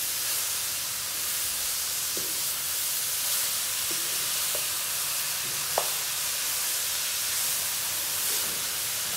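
Grated radish sizzling as it is stir-fried in a non-stick pan: a steady hiss, with a few light scrapes and taps of a wooden spatula against the pan, the sharpest a little before the middle.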